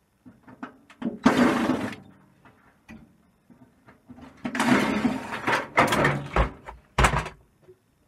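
A microwave's sheet-metal panel being handled and worked on: two spells of harsh scraping and rattling, then two sharp thumps near the end.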